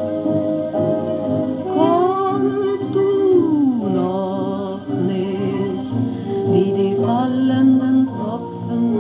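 Music from an old shellac record of a 1930s German chanson with orchestra, playing on a radio-gramophone: an instrumental passage between sung lines, its melody sliding up and down in pitch. The sound is narrow and dull in the highs, as on an old recording.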